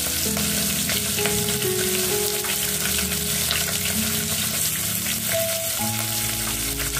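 Freshly added sliced onions sizzling in hot oil with whole spices in an aluminium pot, a steady frying hiss, over background music of held notes.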